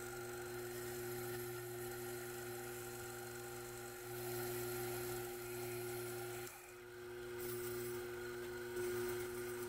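Sherline Model 4400 mini lathe running with a steady motor whine while turning Delrin plastic; the sound dips briefly about two-thirds of the way through.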